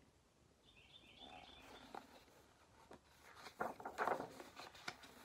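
A picture book's paper page being turned by hand: rustling with a few sharp flicks, loudest about three and a half to four and a half seconds in.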